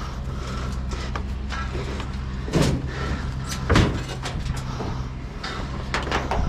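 Vehicle engine idling steadily, with two loud bangs of a heavy metal item being flipped and shifted in the truck bed, about two and a half and nearly four seconds in, and lighter knocks after.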